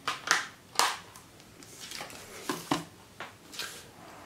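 Plastic Blu-ray case and paper insert card being handled by hand: a run of about ten sharp clicks and rustles.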